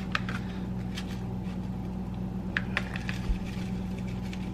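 A steady low hum, with a few faint crinkles and light ticks as a paper seasoning packet is shaken out over a plastic container.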